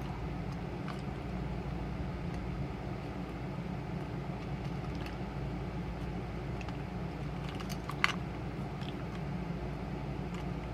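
Small items being handled and packed into a small kit tin, giving scattered light clicks with one sharper click about eight seconds in, over a steady low background hum.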